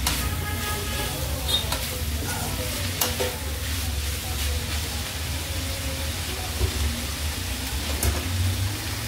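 Metal slotted spatula stirring and scraping sliced ivy gourd (tindora) frying in oil in a black kadhai, with a steady sizzle and a few sharp clicks of the spatula against the pan. A steady low hum sits under it.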